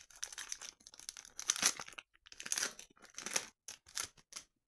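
Foil wrapper of a Pokémon trading card booster pack being torn open and crinkled by hand, in irregular crackling bursts with the loudest about a second and a half in.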